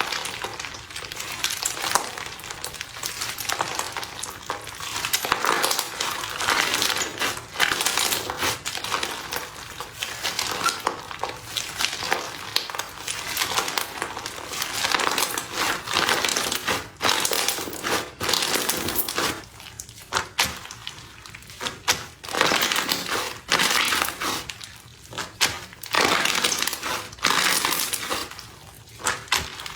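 Slime in cups being pressed, squeezed and poked, giving dense crackling and crunching with many small pops, coming in surges with short lulls between.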